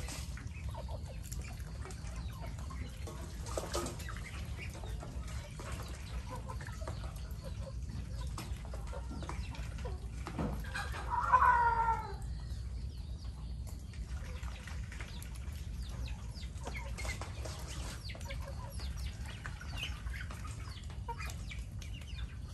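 Chickens clucking softly and intermittently in a farmyard flock, with one loud, pitched call about halfway through. A steady low rumble runs underneath.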